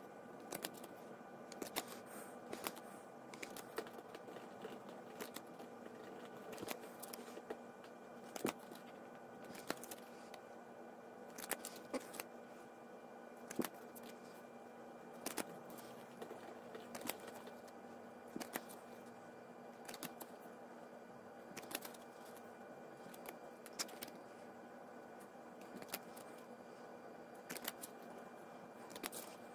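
Chaotic trading cards handled one after another, flicked, slid and set down: short light clicks at an irregular pace of roughly one or two a second, over a faint steady hum.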